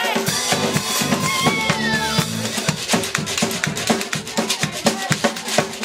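Live folk band playing: tuba and bass holding low notes under drum kit and hand percussion, with a sliding high note about a second and a half in, and the drumming turning fast and busy about halfway through.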